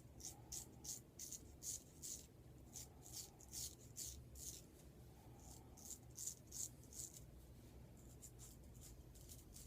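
Faint short scraping strokes of a vintage Adoration straight razor cutting stubble through a thin lather-less shave cream, about three a second in short runs, stopping about seven seconds in.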